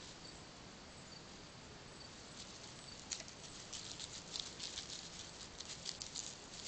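Faint crackling rustle of dry leaf litter as a nine-banded armadillo roots and shuffles through it. The crackles come in quick crisp clicks, sparse at first and much thicker from about three seconds in.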